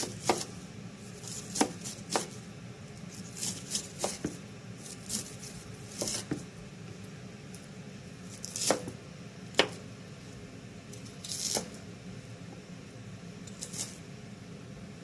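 Knife cutting vegetables on a cutting board: scattered sharp knocks at uneven intervals, over a steady low hum.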